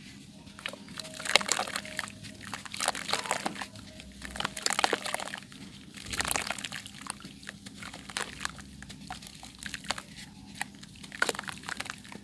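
Chunks of yellow sand clay being crumbled, crunching and crackling in several bursts with short pauses between them.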